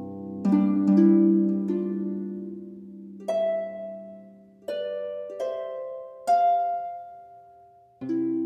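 Background music: slow harp notes and chords, each plucked sharply and ringing out as it fades, about one a second.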